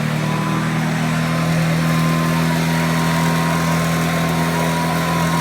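Hoover Junior 1224 upright vacuum cleaner running steadily at full speed, its motor and beater brush giving a steady hum with a faint higher whine.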